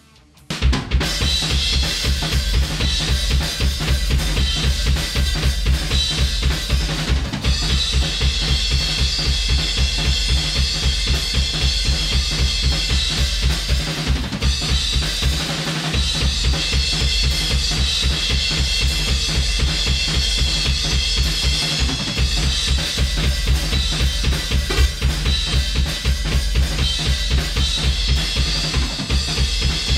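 Multitrack drum kit recording played back with a steady, driving beat of kick, snare and cymbals. The wok-mic drum track runs through an LA-2A optical compressor, and a little under halfway through the compressor is switched to bypass.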